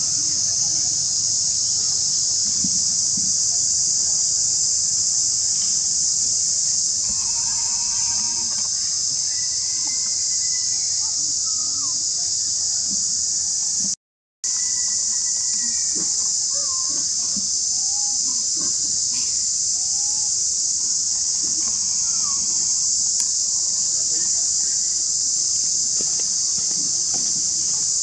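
Steady, loud, high-pitched chorus of insects, breaking off for a moment about halfway, with faint short calls underneath.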